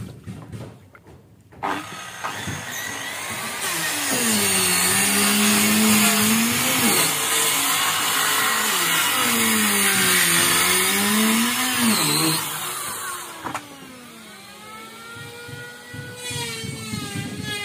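A small petrol engine runs close by and loud, starting about two seconds in. Twice its pitch drops to a low held note for a few seconds and then climbs back up. It falls away about two-thirds through, and a quieter engine follows whose pitch slides down and back up.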